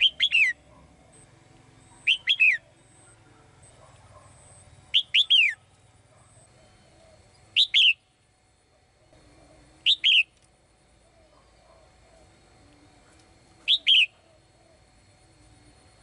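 Caged female red-whiskered bulbul singing: six short phrases of quick, falling whistled notes, spaced two to four seconds apart.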